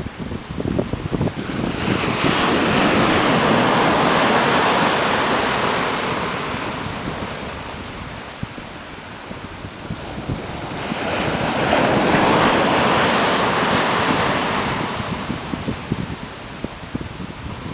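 Sea waves washing up a white coral-sand beach: the hiss of surf swells and fades twice, about two seconds in and again about eleven seconds in. Wind buffets the microphone throughout.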